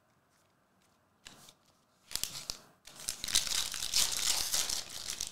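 A foil trading-card pack being torn open and crinkled by hand: a short rip about a second in, another about two seconds in, then loud continuous crinkling of the foil wrapper from about three seconds in.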